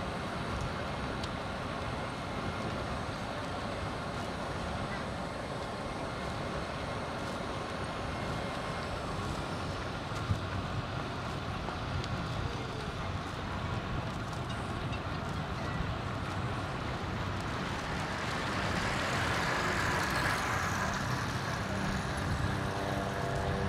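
Steady city traffic noise, with a hiss that swells and fades about four-fifths of the way through.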